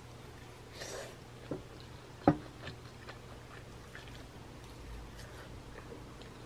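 A metal spoon clicking lightly against a ceramic bowl a few times, the sharpest click a little over two seconds in, with soft chewing between.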